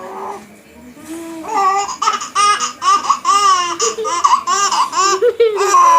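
Baby laughing in a rapid run of short, high-pitched laughs, about three a second, getting going about a second and a half in.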